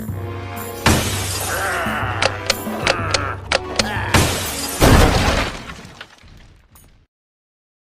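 Cartoon soundtrack: music with a run of sharp slapstick hits, then a loud crash about five seconds in that dies away over the next two seconds.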